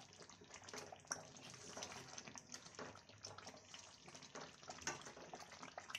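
Thick mango-and-jaggery pickle simmering in a pan as a spatula stirs it: faint, irregular small pops and wet clicks from the sticky, bubbling syrup, cooking down until dry.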